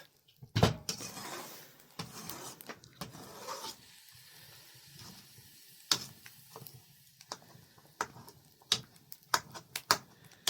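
Scattered sharp knocks and clicks of objects being handled, with a louder knock about half a second in and short scraping or rustling noise in the first few seconds.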